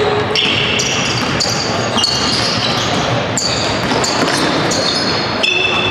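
Basketball game play: sneakers squeaking on the court floor in many short, high chirps, with a ball bouncing.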